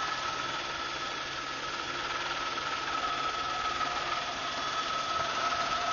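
Steady engine drone with a constant high whine, unchanging throughout.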